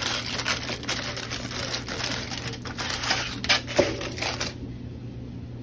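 Aluminium foil crinkling and crackling as it is pressed and crimped around the edges of a dish. The crackling stops about four and a half seconds in.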